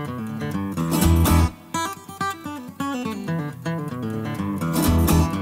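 Background music led by acoustic guitar playing a run of plucked notes, with deep bass notes coming in about a second in and again near the end.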